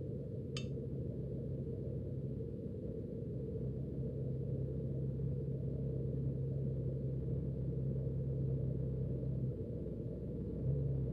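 Steady low engine rumble with a low hum, muffled as heard from inside a pickup's cab, with one short click about half a second in.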